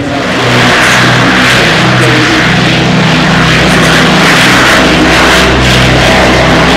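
Douglas DC-6's four Pratt & Whitney R-2800 radial piston engines running at high power as it rolls down the runway, a loud steady propeller drone. It rises sharply about half a second in.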